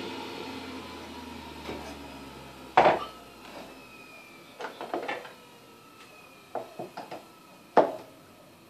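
Stainless-steel centrifugal juicer's motor winding down after being switched off, its hum fading and sinking in pitch over the first few seconds. Then sharp clacks of the juicer's parts being handled, loudest about three seconds in and again near the end.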